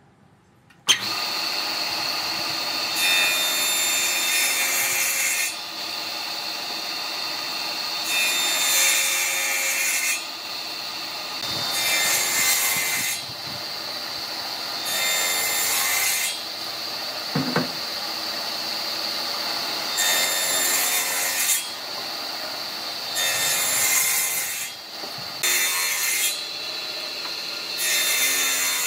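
Jointer with a spiral cutterhead starting up about a second in and running with a steady high whine. A board's edge is fed across the cutter again and again, giving about eight louder cutting passes of a second or two each, every few seconds.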